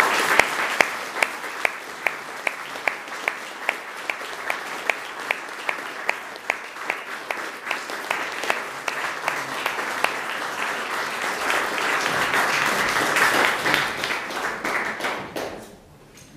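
Audience applauding, with one close clapper's hand claps standing out at an even pace of about two and a half a second. The applause swells near the end, then dies away shortly before the close.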